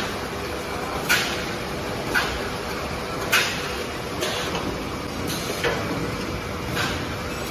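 Automatic case-packing machine running: a steady mechanical noise with a short, sharp hiss about once a second as its vacuum suction-cup picker works in cycles.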